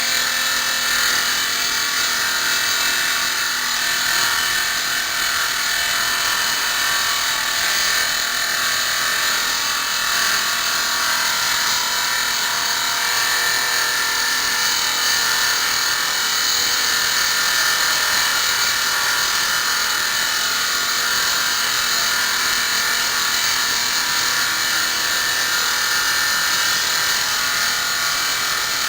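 Automatic granite-cutting bridge saw (Maqfort RM350 SRF, 350 mm blade) running steadily: a constant high-pitched whine with hiss from the circular stone-cutting blade.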